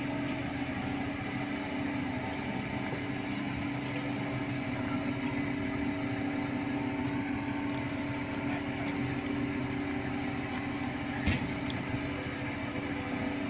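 Truck crane's diesel engine running steadily under load while lifting, with a steady hum over it; a single brief knock about eleven seconds in.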